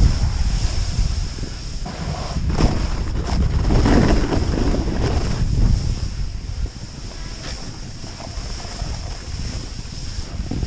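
Snowboard sliding and scraping through snow with wind rushing over the camera's microphone, louder in the first six seconds and easing off after.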